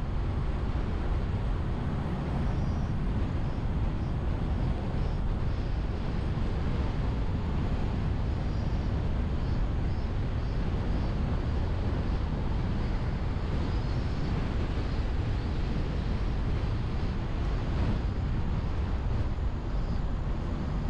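Steady low rumble of a car driving, picked up by a car-mounted action camera: road and tyre noise mixed with wind buffeting the microphone.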